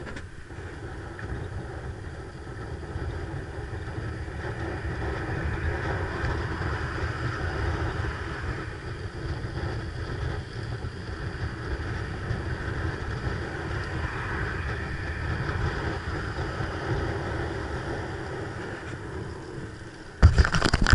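Wind rushing over a small action-camera microphone, with low rumble from the bicycle rolling fast on the road. Near the end there is a sudden loud burst of rustling and bumping, much louder than the ride noise.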